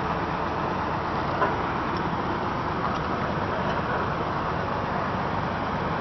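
Engine of a heavy off-road vehicle running steadily, with one short knock about a second and a half in.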